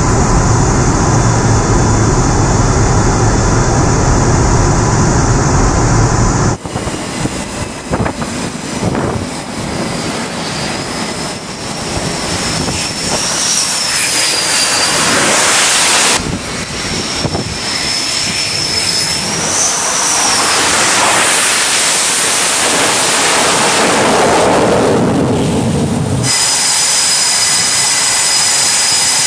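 Jet aircraft noise across several cuts: a steady heavy drone for the first six seconds or so, then jet engines on a carrier deck with a high whine that rises and falls twice and some sharp knocks. From a few seconds before the end, an F/A-18 Super Hornet's engines run steadily on deck with a high whistling whine.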